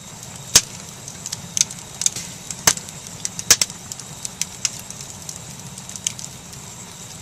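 Wood fire crackling: irregular sharp pops and snaps from burning split logs over a steady low rush of the flames, with the loudest pops about half a second in and around the middle.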